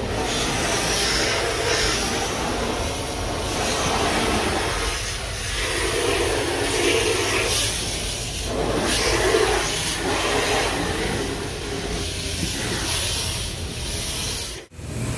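Water from a hose spraying onto a car's roof and newly fitted sunroof glass, heard from inside the cabin as a rushing hiss that swells and fades as the spray moves: a water leak test of the sunroof.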